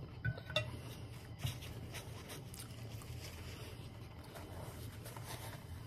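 A few light clinks of a metal fork against a ceramic plate in the first second and a half, then faint room tone.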